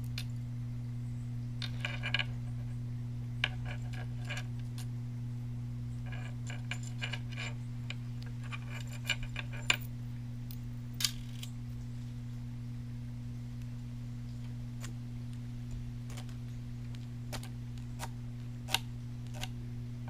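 Short bursts of small clicks and crackles, several clusters in the first ten seconds and a few single clicks later, over a steady low hum.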